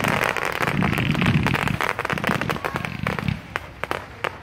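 Fireworks going off: a dense run of crackling and popping over a hiss, with low booms underneath, from ground fountains and aerial shells. About three seconds in it thins out to a few scattered sharp cracks.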